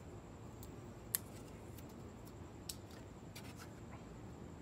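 Handling noise of a wing stabilizer plate being held and positioned against a car's rear wing: a sharp click a little over a second in, a softer click near the three-second mark, and a few faint ticks and rubs, over a low steady hum.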